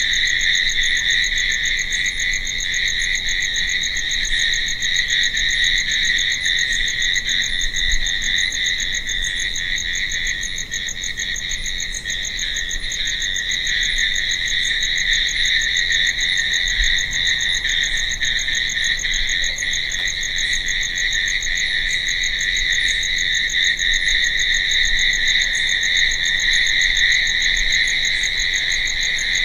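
Dense chorus of crickets chirping at night, a steady unbroken trilling with faint higher ticks repeating through it.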